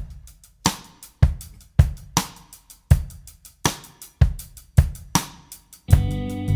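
Background music: a drum-kit beat starts abruptly, with kick, snare and cymbal hits about every half second. About six seconds in, bass and sustained chords come in under the drums.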